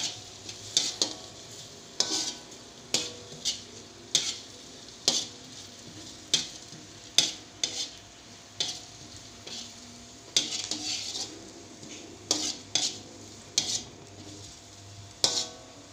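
Metal spatula scraping and clacking against a metal wok in irregular strokes, roughly one or two a second, over a steady sizzle as chopped shallots and garlic are sautéed.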